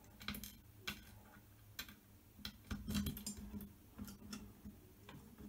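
Small metal bolts and washers clicking and clinking as they are handled and a bolt is fitted, with scattered light knocks, the loudest about three seconds in.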